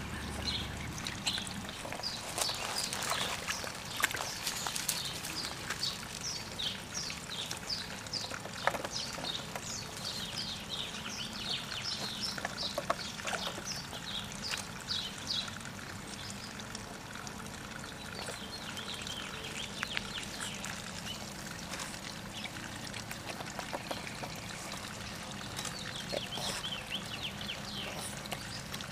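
Boston Terrier snapping and slurping at the surface of a koi pond, with wet clicks and small splashes that are busiest in the first half, over a steady trickle of pond water.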